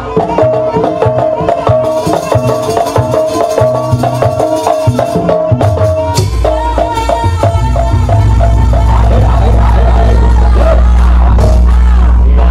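Jaranan gamelan music: hand drums beating quickly under a held, reedy melody line. About eight seconds in, a loud steady low drone sets in and the music grows louder.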